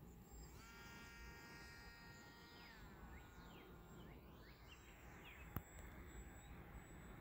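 Faint whine of the Opterra flying wing's electric motor and propeller passing by, holding one pitch and then dropping in pitch as it goes past and fades. A single sharp click comes about two-thirds of the way through.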